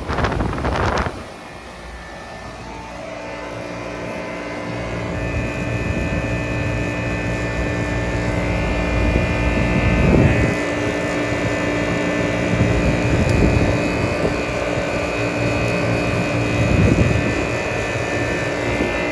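Outdoor air-conditioner or heat pump condensing unit running: a steady compressor hum with several constant tones over fan noise, growing louder over several seconds. About a second in, wind noise on the microphone drops away abruptly.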